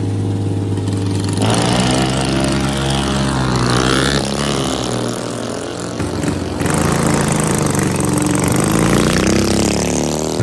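Small mini bike engines running and revving, the pitch rising and falling as the bikes ride off. The sound changes abruptly about a second and a half in and again about six and a half seconds in.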